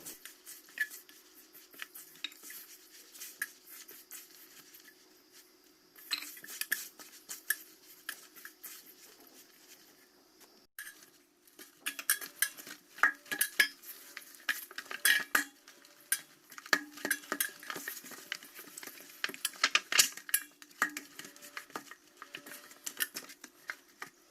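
A utensil clinking and scraping irregularly against a mixing bowl as flour, eggs and yeast are worked together with warm milk into donut dough, with a faint steady hum underneath.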